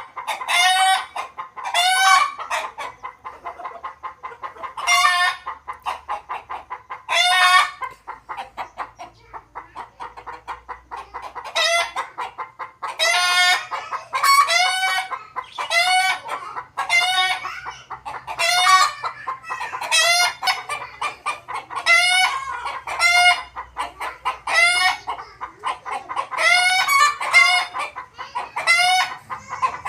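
Desi chickens calling: a run of quick clucks, broken every second or two by short, loud calls, with a rooster crowing among them.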